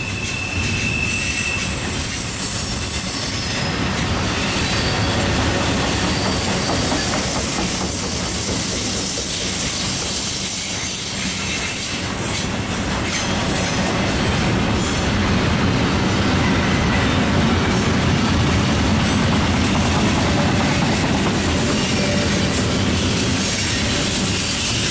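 Double-stack intermodal container well cars rolling steadily past: a continuous rumble and clatter of steel wheels on rail. A thin, high-pitched wheel squeal rides over it for the first few seconds.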